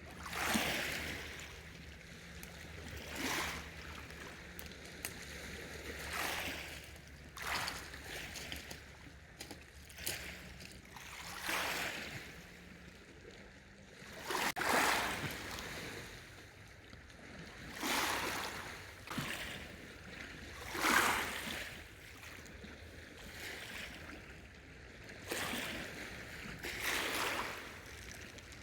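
Small lake waves lapping and splashing at the shore in irregular swells, one every second or few.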